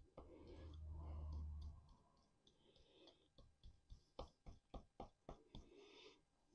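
Quiet sharp clicks and snaps, several a second at times, from a hand tool cutting and breaking away hard privet wood to disguise a chop cut. A low hum sounds for about a second and a half near the start.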